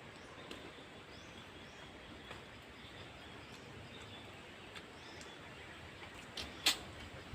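Faint outdoor ambience with thin, high chirps repeating through it, and two sharp clicks near the end, the second much the louder.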